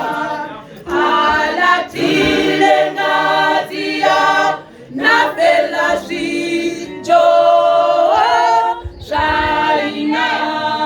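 Choir singing a cappella in several voices, in phrases with short breaths between them.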